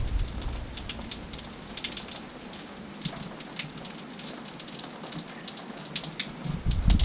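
Rain falling, with many small drop impacts pattering through a steady hiss. Low wind rumble on the microphone dies away over the first couple of seconds and picks up again near the end.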